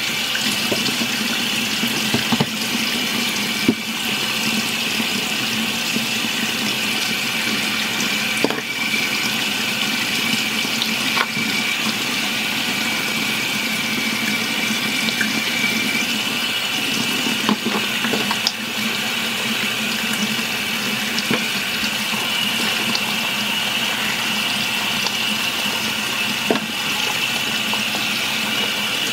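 Kitchen tap running steadily into a stainless-steel sink, the stream splashing over baby bottles being washed under it. A few light knocks sound along the way.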